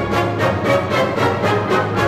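Instrumental music played from a 1958 RCA Victor stereophonic demonstration LP, with a quick steady beat of about four pulses a second.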